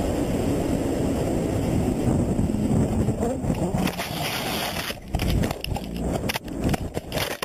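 Helmet-mounted camera on a rider at speed on a road: a steady rush of wind and road noise, which about four seconds in breaks up as the rider crashes and tumbles, followed by a run of knocks and scrapes.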